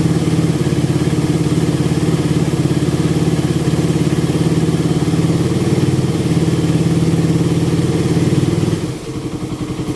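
Suzuki Raider 150 carburettor single-cylinder four-stroke engine running steadily, warmed up with the choke off and running normally. Its sound dips briefly near the end, then picks up again.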